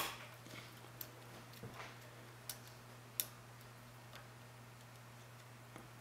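Lock pick clicking against the pins inside a Rav Bariach pin-tumbler padlock during single-pin picking: a sharp click at the very start, the loudest, then a few fainter clicks and ticks over the next three seconds and one more near the end.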